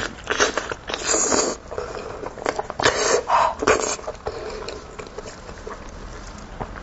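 Close-miked eating of a cooked sheep's head: wet chewing, smacking and tearing of meat from the bone in irregular bursts, softer during the last few seconds.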